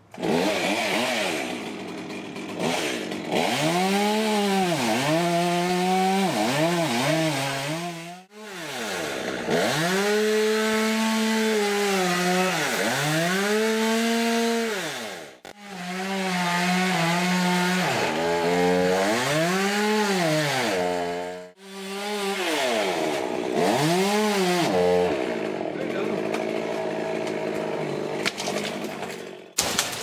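Gas chainsaw being run by a climber at the top of a tree trunk, its engine revved up to a held high pitch and dropped back over and over as it cuts, with three short breaks.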